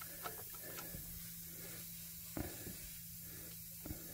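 Faint, sparse metallic clicks from a 3/8-drive ratchet worked on the serpentine belt tensioner, with one sharper knock about midway. A low steady hum runs underneath.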